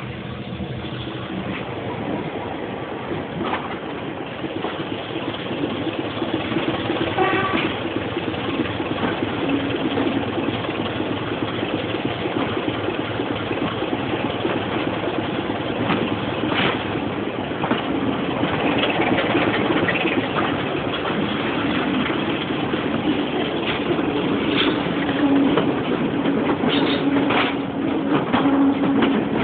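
Class 25 diesel locomotive's Sulzer six-cylinder engine working as the train pulls away, heard from an open window over the noise of the moving train. It grows steadily louder, and a steady engine note comes up strongly in the second half.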